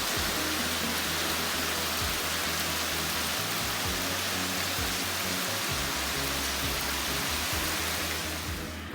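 Heavy rain pouring down in a steady hiss, with background music under it; the rain cuts off abruptly at the end.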